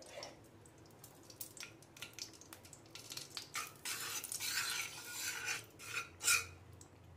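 Steel spoon scraping and tapping against the bottom of a stainless steel kadhai, stirring melting ghee. There are scattered clinks, a denser stretch of scraping a few seconds in, and one sharper clink near the end.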